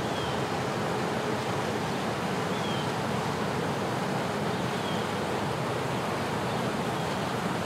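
Steady outdoor rushing noise with no distinct event, and a few faint short high chirps now and then.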